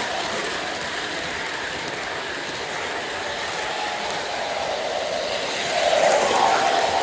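O scale model diesel locomotive running on its track: a steady rushing noise of the wheels rolling, with the locomotive's onboard engine sound effects swelling louder near the end.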